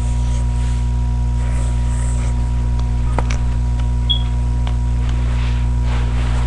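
Steady low electrical hum with a fainter high tone over it, and a few faint clicks and soft scratches around the middle.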